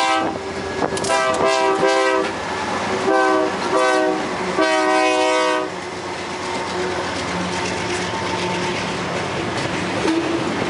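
GE AC4400CW freight locomotive's multi-chime air horn sounding a rapid pattern of short blasts and then one longer blast, played as a horn show. After the horn stops, the train rolls on with a steady rumble and wheel clatter.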